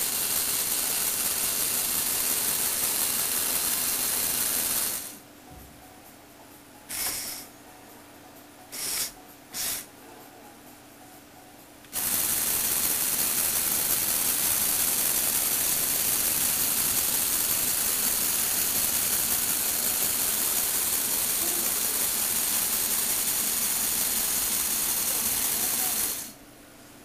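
Lego Technic motor and gear train whirring as it tilts and rotates a model car body. It runs steadily for about five seconds, stops, gives three short bursts, then runs steadily again for about fourteen seconds before stopping.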